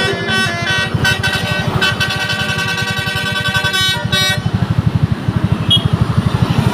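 Telolet bus horns playing a melody of short notes that step up and down in pitch, stopping about four seconds in. A low engine beat with a fast pulse runs under the horns and continues after they stop.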